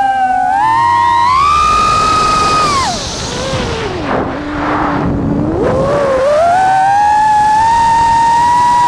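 FPV racing quadcopter's brushless motors and propellers whining. The pitch rises near the start as the throttle comes up, drops low about three seconds in with a rush of air, and climbs back again around six seconds in.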